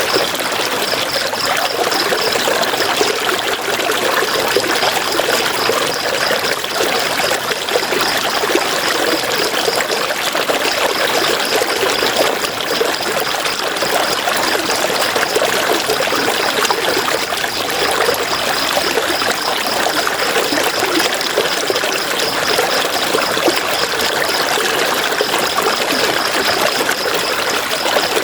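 River water flowing and babbling over stones in a steady, unbroken rush. A high, fast-pulsing trill sounds above it and drops out and returns several times.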